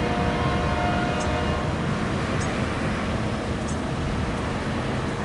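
Low rumble of a freight train pulling away from a grade crossing, mixed with idling road traffic. A few steady tones fade out in the first couple of seconds, and a faint high tick comes about every second and a quarter.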